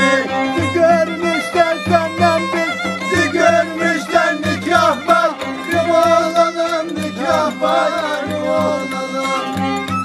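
Violin, held upright on the knee and bowed, playing a lively Western Black Sea folk dance tune (oyun havası), with a man singing along in the middle of the passage. Beneath them run a steady low drone and a regular low pulsing beat.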